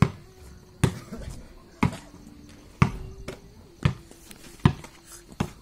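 Basketball bouncing on hard-packed dirt ground, about one bounce a second with a sharp slap each time, seven or eight times in all.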